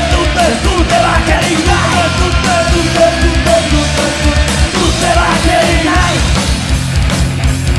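Rock band playing live: a sung lead vocal over electric guitars, bass and drums, with a steady driving drum beat. The vocal drops out about six seconds in, leaving the band playing on.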